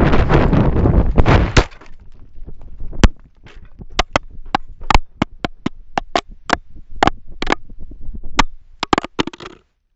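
A 3DR Solo quadcopter crashing. Loud rushing wind noise over its onboard camera cuts off abruptly under two seconds in. Then comes a long, irregular string of sharp knocks and clatters as the drone tumbles over bare rock, ending in a quick cluster of knocks.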